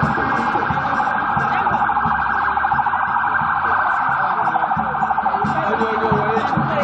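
A loud siren-like warbling tone, held steady and cutting off abruptly at the end, over a low pulsing beat.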